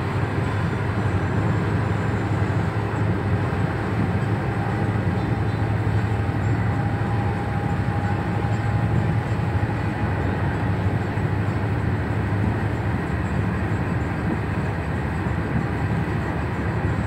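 Steady low rumble and hiss of a moving vehicle, heard from inside it.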